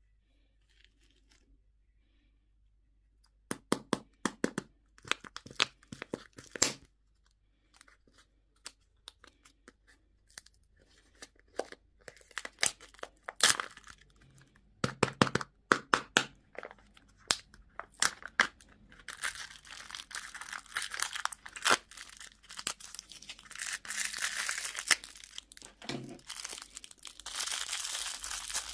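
Candy packaging being torn open and crinkled by hand. Sharp crackling snaps start about three seconds in and thicken into continuous crinkling about two-thirds of the way through.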